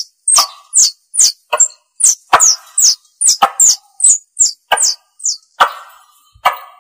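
Tupai lure call: a rapid series of sharp, high chirps, each falling quickly in pitch, about two to three a second, some with a rougher chatter beneath. This is the call hunters play to draw tupai in.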